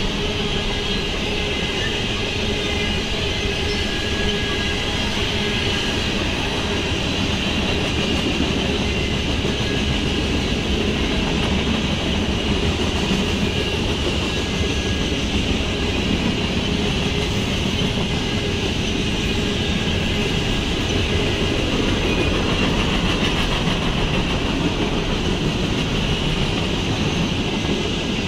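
Mixed freight cars of a Norfolk Southern manifest train rolling past, their steel wheels running steadily over the rails at an even level.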